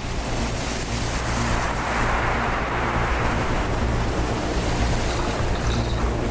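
Storm waves breaking heavily against a sea wall, a dense wash of surf and spray that swells about two to three seconds in, over a steady low rumble of wind on the microphone.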